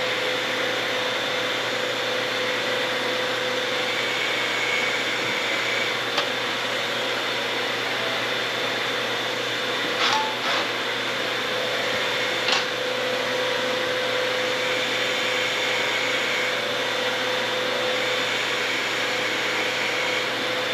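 A steady machine whir with a constant hum, unchanging throughout, and a couple of faint ticks about ten and twelve seconds in.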